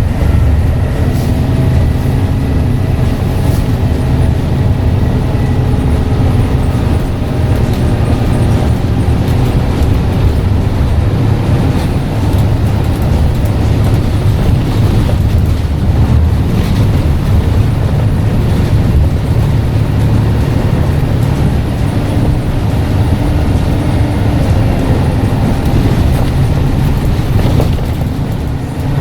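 Scania N94UD double-decker bus engine and drivetrain running steadily under way, a heavy low drone, with a faint high turbo whistle over it in the first few seconds.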